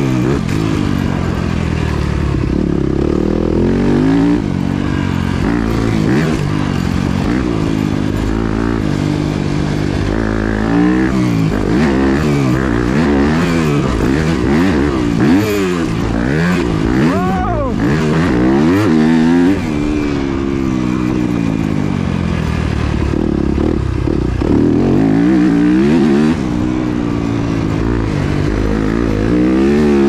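Yamaha YZ250F four-stroke motocross bike's single-cylinder engine heard from on board, revving up and dropping back again and again as the throttle is opened and shut through the gears. It has one sharp rev spike and fall just past the middle.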